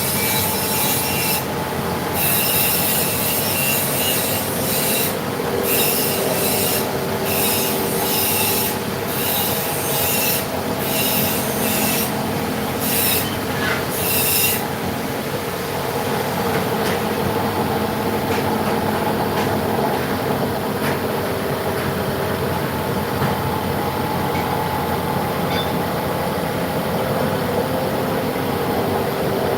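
Vertical machining centre cutting metal: a high screeching cut comes in short repeated passes over the steady whine of the machine. About halfway through the screeching stops and the machine runs on with only its steady whine.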